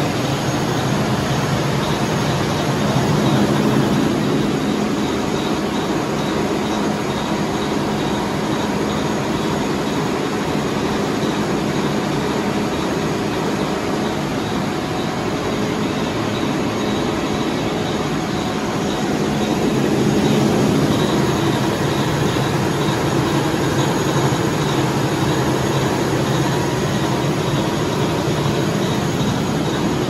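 Industrial water chiller (150,000–163,000 kcal/h chilled-water unit) running on test, its refrigeration compressors working: a steady, loud machinery drone with a constant low hum.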